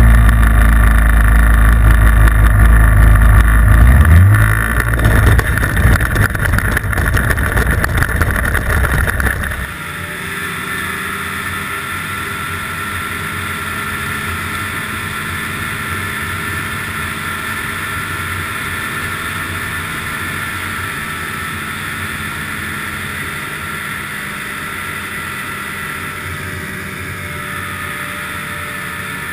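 Ski-Doo snowmobile engine running while riding a trail. For the first ten seconds it is very loud and rumbling, with wind buffeting the microphone and a brief rise in engine pitch about four seconds in. It then changes abruptly to a steadier, quieter engine drone at cruising speed.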